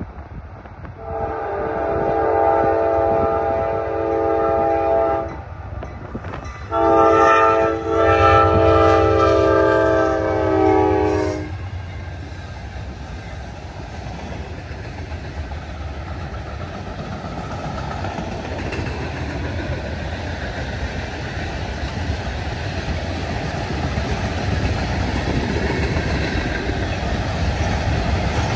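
Air horn of a Norfolk Southern AC44C6M diesel freight locomotive, several notes sounding at once, blown in two long blasts of about four to five seconds each with a short gap between. After the horn, the approaching freight train's engine and rolling wheels make a steady rumble that grows louder toward the end.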